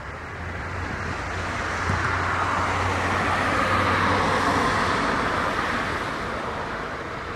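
A motor vehicle passing on the street: tyre and engine noise with a low hum that swells to a peak about halfway through, then fades away.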